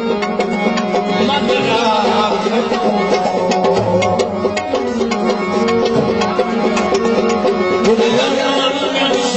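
Live South Asian folk music, an instrumental passage of hand-drum percussion under steady held melody notes.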